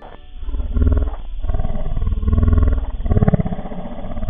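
A loud, low growling roar with a rough, rattling texture, swelling and easing about four times.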